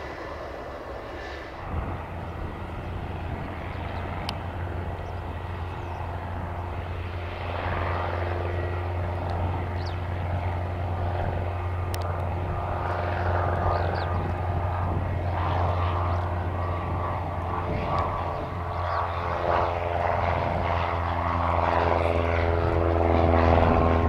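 Airbus A320 jet engines at taxi power: a steady low hum with a whine of several steady tones, growing louder as the airliner rolls closer.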